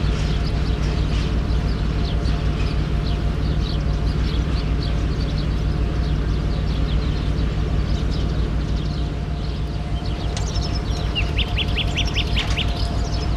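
Steady low rumble of an Electroputere LDE 2100 diesel locomotive's Sulzer engine, with birds chirping throughout and a quick run of chirps near the end.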